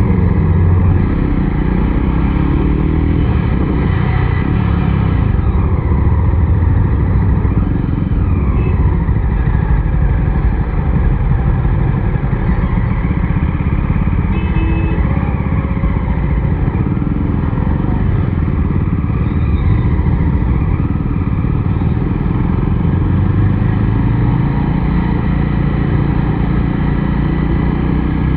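Jawa 42 motorcycle's 293 cc single-cylinder engine running under way on a ride, its pitch rising and falling several times as the revs change.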